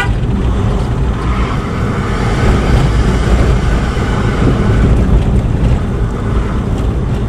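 Vehicle driving: a steady low engine and road rumble, likely a diesel, with road noise on top.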